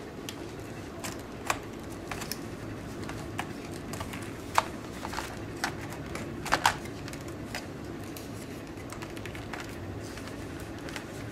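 Scattered light clicks and taps of plastic as the pi-top laptop case's keyboard module and cables are handled and fitted, a few sharper clicks standing out, over a steady low hum.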